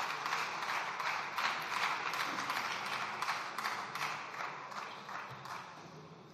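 Applause from a group of people clapping, fading away over the last couple of seconds.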